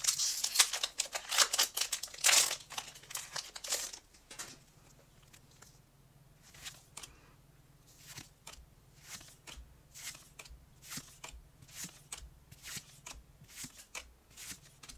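Foil booster-pack wrapper crinkling and tearing open for the first few seconds, then soft short card sounds about once or twice a second as trading cards are slid and flipped one at a time.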